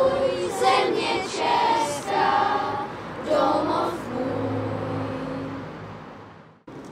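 A children's choir with adults singing together a cappella. The song ends on a long held note about four seconds in, which fades away.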